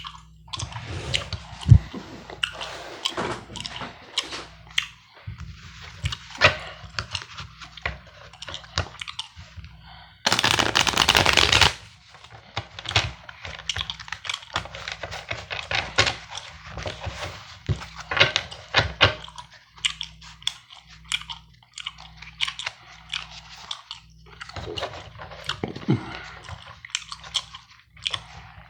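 Playing cards handled close up: a string of light snaps, flicks and taps, with one dense riffle-shuffle burst about ten seconds in that lasts about a second and a half. Gum chewing mixes in with the card sounds.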